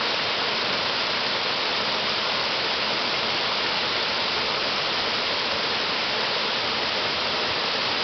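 Small waterfall splashing steadily down a rock face into a shallow pool, an even, unbroken rush of falling water.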